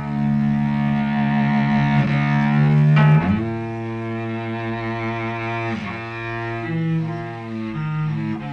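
Solo cello improvisation, bowed: long held low notes, often two sounding together, moving to new notes about three seconds in and then every second or so near the end.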